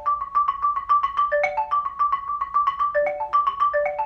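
Xylophone played with two mallets in a fast run of single strokes: one high note struck over and over, with short rising figures of lower notes breaking in about once a second, as in a practice exercise.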